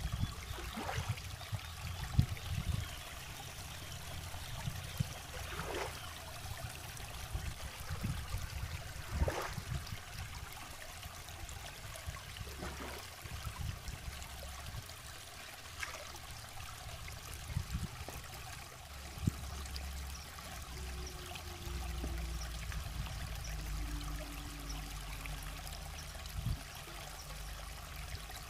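River water trickling and splashing as small fish are rinsed and cleaned by hand in the shallows, with a sharp splash every few seconds.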